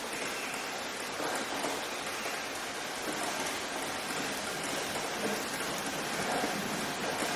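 Steady rainfall, an even hiss of rain falling on surfaces.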